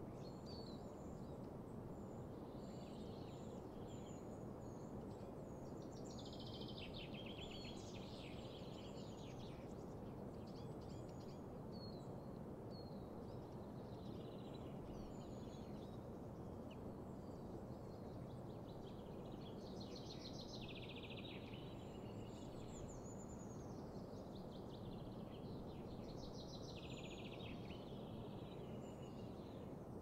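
Several songbirds singing, with short chirps and trilled phrases coming again and again, over a steady low rushing background noise of open countryside.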